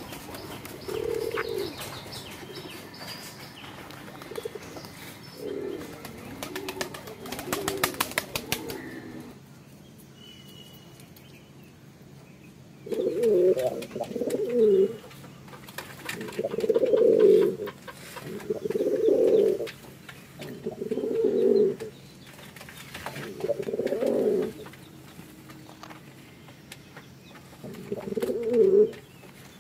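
Pigeons and doves cooing, low calls of about a second each that repeat roughly every two seconds in the second half, with a quick flurry of wing flaps about eight seconds in.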